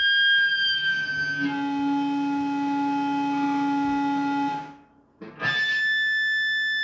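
Electronic keyboard sounding single held notes with different patches: a high tone, then a lower, fuller tone for about three seconds. After a short break another high tone comes in near the end.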